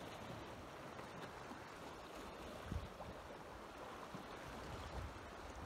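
Soft steady wash of sea water against shore rocks with wind on the microphone, broken by a low bump about three seconds in and another near the end.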